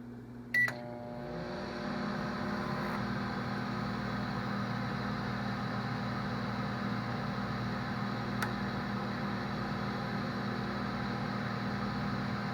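Microwave oven beeps once as it is started, then runs: a steady hum of the magnetron and fan that swells over the first second or two and holds, with a faint click about eight seconds in.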